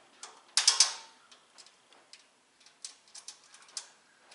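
Metal clinking and clicking from tool cart parts and bolts being handled during assembly: a quick cluster of three sharp clanks about half a second in, then a scatter of lighter ticks.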